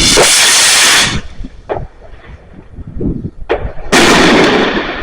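Consumer fireworks going off: two very loud bursts, each lasting about a second, one at the start and one near the end, with two single sharp bangs between them.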